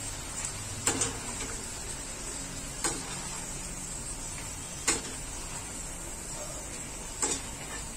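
Steel slotted spoon clinking four times, about two seconds apart, as it tips deep-fried peanuts into a wire-mesh strainer over the kadai. Under it, hot frying oil sizzles faintly and steadily.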